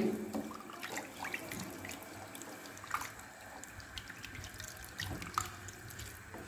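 Wooden spatula stirring rice, vegetables and water in a pressure cooker: soft sloshing of liquid with scattered light clicks of the spatula against the pot, the most distinct about three seconds in and again past five seconds.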